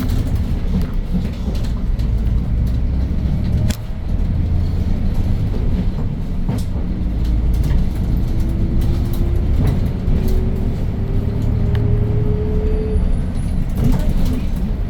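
Hyundai New Super Aero City city bus with its CNG engine (C6AF Q290) running while driving, a steady low rumble heard from inside the bus, with light clicks and rattles. The rumble dips briefly just before 4 s in, and through the middle a whine rises slowly in pitch for several seconds before it stops.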